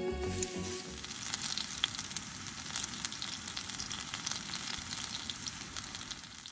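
Potato-starch-coated pieces of kibire (yellowfin seabream) shallow-frying in a generous amount of oil in a small frying pan, sizzling steadily with scattered small pops and crackles. The sizzle cuts off abruptly at the very end.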